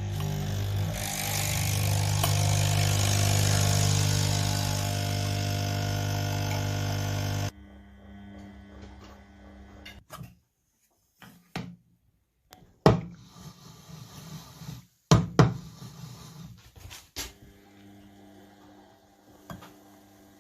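Nespresso Essenza Mini coffee machine's pump buzzing steadily as it brews, then cutting off suddenly about seven and a half seconds in. After it come several sharp clicks and knocks with quiet gaps between them.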